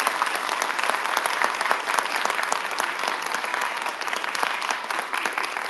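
Audience applauding, with many rapid hand claps, fading slightly near the end.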